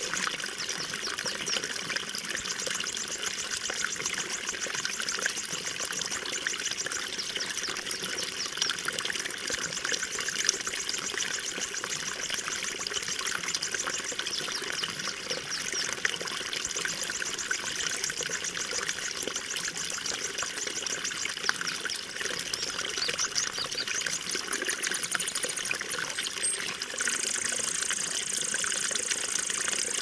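Running water trickling and splashing steadily, a dense patter of small splashes over a continuous rush. A steady high-pitched hiss joins near the end.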